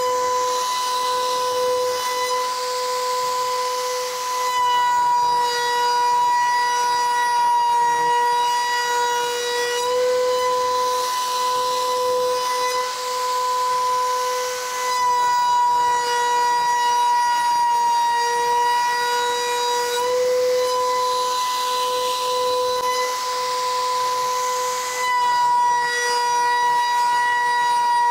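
Leehyun CNC router spindle running with a steady high-pitched whine while its profile bit cuts a wooden molding. A hiss of cutting swells and fades about every ten seconds, and the whine's pitch dips slightly under load.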